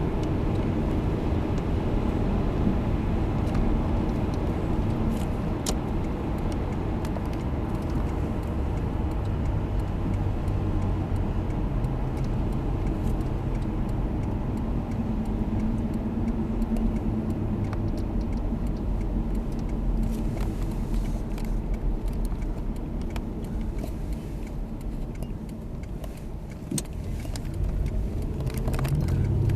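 Car running down the road: a steady engine hum and tyre noise, with scattered sharp ticks and clicks. The engine grows louder near the end.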